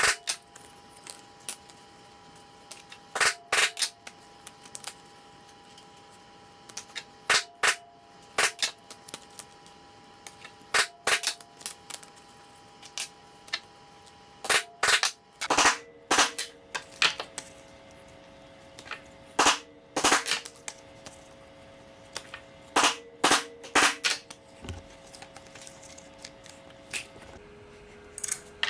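Mallet striking a leather stamping tool held on veg-tan leather over a stone slab: sharp knocks in clusters of two or three, every few seconds.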